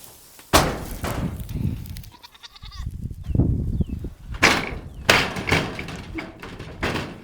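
Nigerian dwarf goats bleating several times in close succession, with a sharp knock about half a second in.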